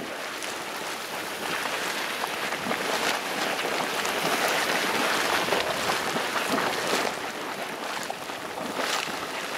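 Dog Bone Geyser's vent in a low eruption: hot water splashing and spurting up from the vent and falling back into its pool, a steady splashing rush full of small sharp splats, swelling a little in the middle.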